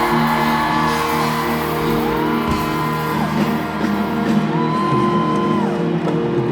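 Live band music with sustained chords under a lead line of long held notes, each sliding up, holding and sliding down, three times.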